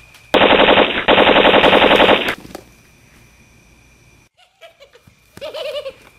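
Machine-gun fire, a long rapid burst of about two seconds with a brief break about a second in. Near the end, a short sound from a person's voice.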